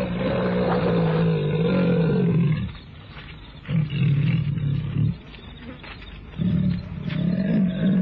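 A leopard growling over its prey in three long, low growls, the first about two and a half seconds long, with short pauses between them. Heard on an old narrow-band radio recording.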